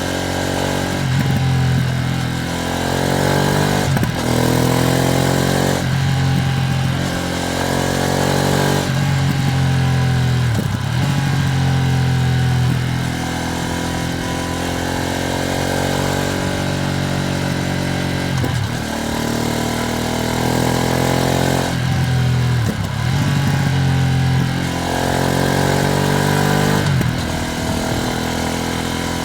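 Ducati Streetfighter V2S's 890 cc V-twin engine pulling under acceleration, its pitch climbing through each gear and dropping back at about eight gear changes, with steady wind hiss on the microphone.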